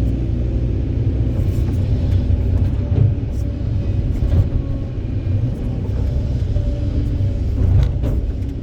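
Kobelco 200SK excavator's diesel engine running steadily under load, a deep rumble, with a few short knocks; the loudest comes near the end.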